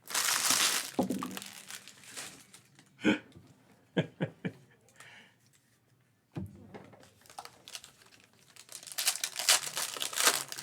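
Card-pack wrappers being torn open and crinkled by hand, in two spells of crackling with a few clicks in between.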